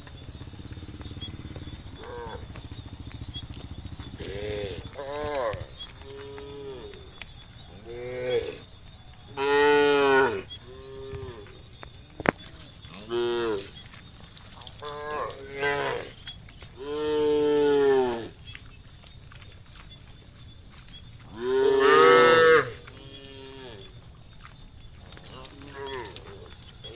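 Cows mooing repeatedly: about a dozen separate calls of differing pitch, each rising and then falling, with the three loudest and longest about ten, seventeen and twenty-two seconds in.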